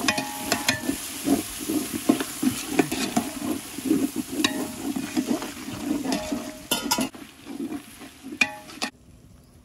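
Metal ladle stirring and scraping through mutton gravy in a large metal pot, the gravy sizzling, with several sharp clinks of the ladle against the pot. The sound cuts off abruptly near the end.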